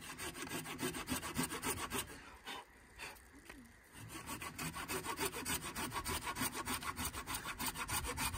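Hand saw cutting into a wooden pole with quick, even back-and-forth strokes, sawing about halfway through to make a notch. The sawing eases off briefly about two and a half seconds in, then picks up again.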